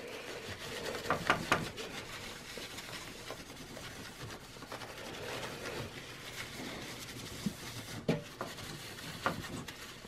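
Paper towel rubbing over a processor's metal lid, wiping off the old thermal compound, with a few light knocks along the way.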